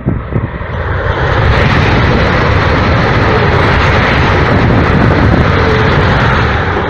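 Talgo 350 (Renfe AVE) high-speed train passing at speed: a loud rushing noise that builds over the first second or two, holds, and eases off near the end.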